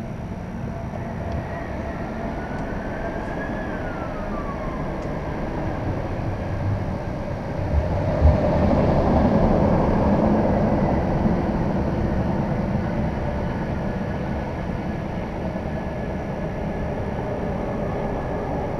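Steady hum of highway traffic, with one vehicle swelling louder about halfway through and then fading away.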